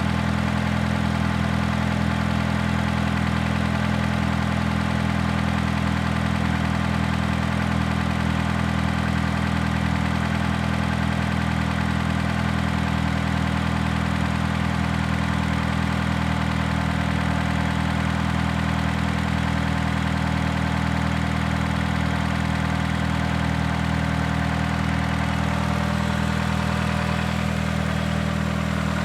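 Car engine idling steadily, a low even hum with no revving.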